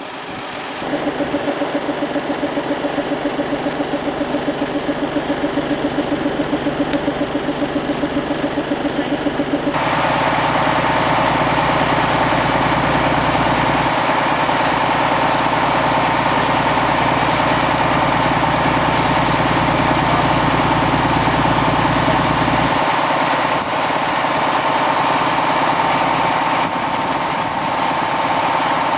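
An engine starts about a second in and runs with an even, rapid pulse. About ten seconds in it speeds up to a louder, steadier running note.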